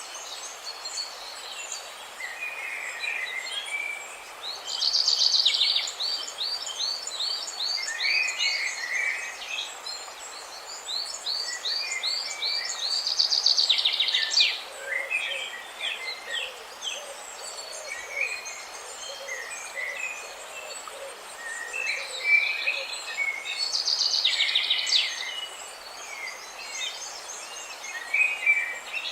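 Several songbirds chirping, with fast trills of repeated chirps that come in runs of a few seconds, over the steady hiss of splashing water.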